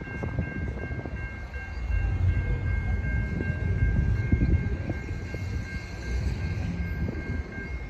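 Horn of an approaching Norfolk Southern freight train's lead locomotive, a GE AC44C6M, sounding one long steady chord of several notes, with wind rumbling on the microphone.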